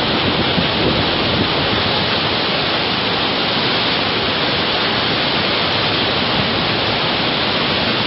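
Dudhsagar Falls in monsoon flood: a steady, loud rush of heavy falling water that does not change in level.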